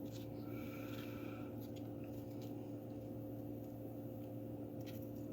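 Faint rubbing and rustling of sandpaper being pressed by hand onto a tape-wrapped form, mostly in the first second and a half, with a few light ticks later. A steady low electrical hum runs underneath.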